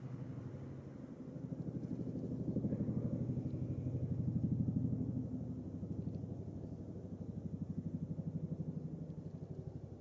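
A low, rapidly pulsing engine sound that grows louder, peaks around the middle, swells once more and then fades.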